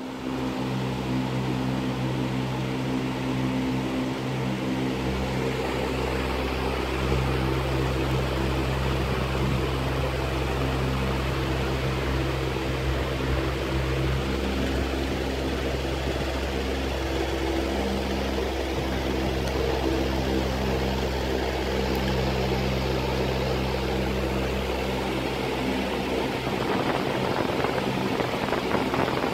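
Aquarium filter running: a steady motor hum with an even hiss of moving water.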